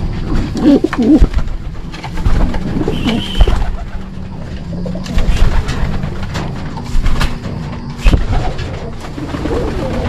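Racing pigeons cooing in a loft, with several sharp knocks and thumps among the cooing.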